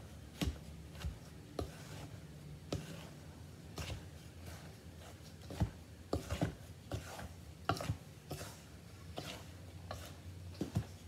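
Wooden spatula stirring a dry flour mixture in a stainless steel mixing bowl: irregular scrapes and knocks against the metal.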